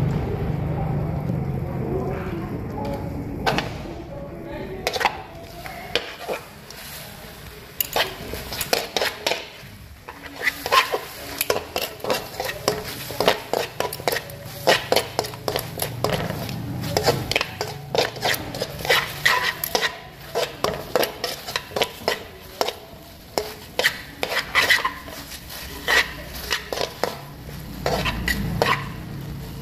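Metal tongs clinking and scraping against a metal wok as chicken feet are tossed to coat them in fish sauce and annatto oil, with many quick irregular clicks from about eight seconds in.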